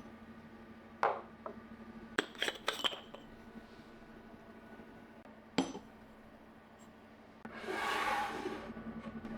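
Coffee gear being handled during espresso preparation: a few sharp clinks of metal and glass, a single knock a little past halfway, and a short rustling swell near the end, over a faint steady hum.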